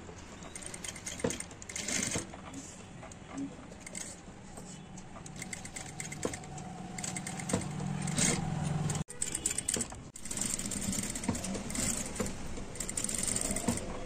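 Electric sewing machine stitching through a heavily embroidered blouse panel, its motor humming and the needle mechanism clicking in stretches that stop and start.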